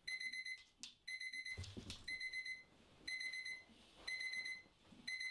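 Electronic alarm clock going off: a high, rapidly pulsing beep that sounds in short bursts about once a second.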